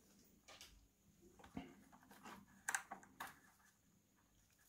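Near silence with a few faint clicks and taps, about one and a half to three seconds in, from hands handling the scooter's controller and its wiring.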